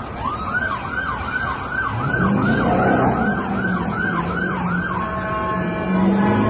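Emergency vehicle siren sounding in a fast yelp of quick rising-and-falling sweeps, a couple a second, that changes to a steady held tone about five seconds in, with a low steady drone underneath.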